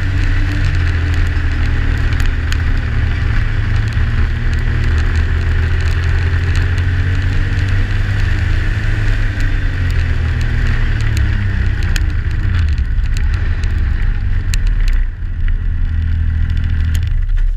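Yamaha Sidewinder snowmobile's turbocharged three-cylinder four-stroke engine running steadily at trail cruising speed, with small rises and falls in pitch. It eases off about fifteen seconds in and drops away near the end.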